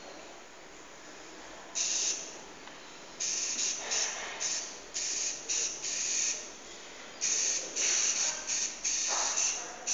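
Small wheeled robot's motors whirring in short, abrupt bursts that start and stop irregularly as it steers to follow a coloured ball, a high hissing buzz. Once about 2 s in, then in quick succession from about 3 s on.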